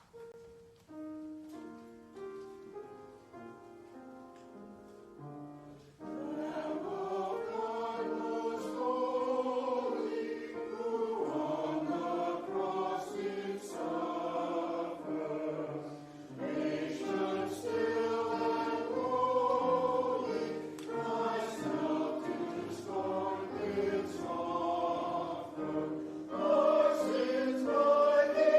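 A short instrumental introduction of held notes, then a choir comes in about six seconds in, singing with instrumental accompaniment.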